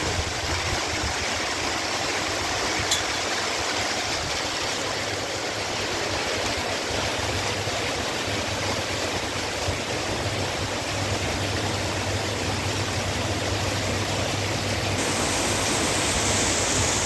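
Heavy rain pouring down, a dense steady hiss, with a single sharp click about three seconds in. The rain grows a little louder and brighter near the end.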